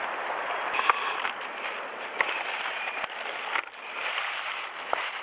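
Sea water washing and swirling over shore rocks as a steady wash, with a few light clicks scattered through it.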